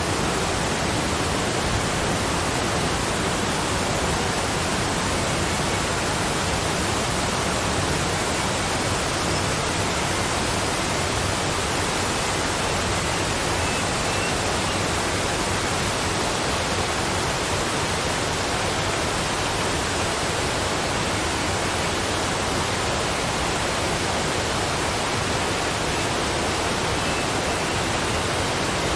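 Waterfall: water falling steadily as an even, unbroken rush with no changes.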